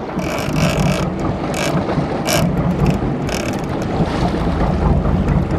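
Charter boat's engine running steadily, with several short bursts of wind noise on the microphone.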